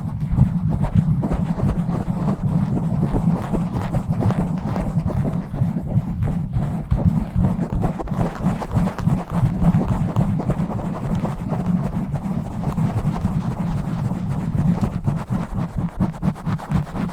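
A bare microphone being scratched and rubbed fast and roughly, giving a continuous, dense, low rasping noise.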